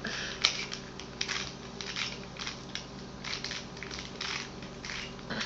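Rubik's Cube being turned by hand: an irregular run of quick plastic clicks and clacks as the layers snap round, about two or three a second.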